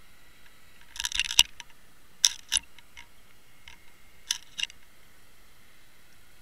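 Clusters of sharp clicks and knocks from an underwater fishing rig and camera housing being towed along the bottom, three groups about a second apart in time (near one second in, a little after two seconds, and past four seconds), the loudest a single hard knock in the first group, over a faint steady hiss.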